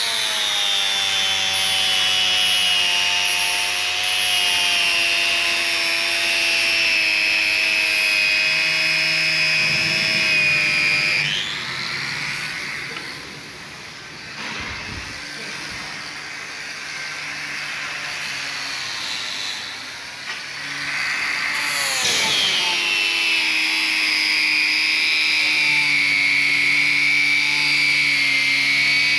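Angle grinder with a polishing disc running against a stainless steel flat bar, a steady motor whine that sags a little under load. About eleven seconds in it winds down with a falling pitch. Some ten seconds later it starts again with a rising whine and runs steadily.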